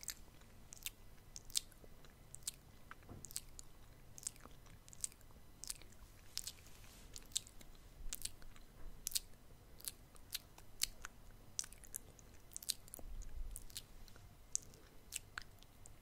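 Wet ASMR mouth sounds close to the microphone: sharp lip smacks and tongue clicks, irregular, a few each second.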